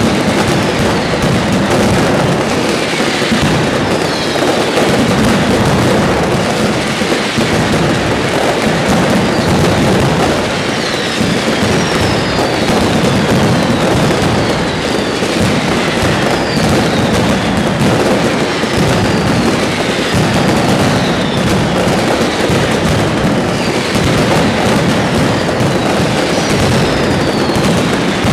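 Mascletà barrage: a loud, unbroken rattle of massed firecrackers and aerial salutes, with many falling whistles from whistling fireworks overhead.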